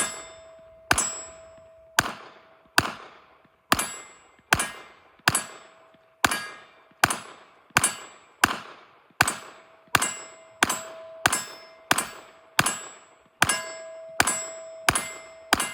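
9mm Glock 45 pistol fired in a steady string of about twenty shots, a little under a second apart. Many shots are followed by the ringing ding of a steel target being hit; a few shots with no ring are misses.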